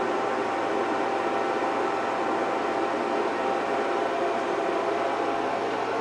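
Steady fan hum of a power inverter running under the roughly 900 W load of a toaster, with a faint steady whine on top.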